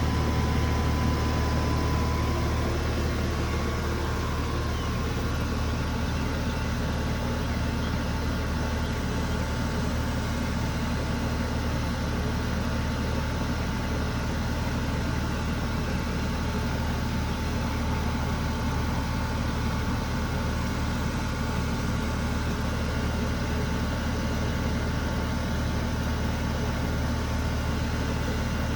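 Outdoor air-conditioning unit running steadily: a constant low hum with a faint steady whine above it.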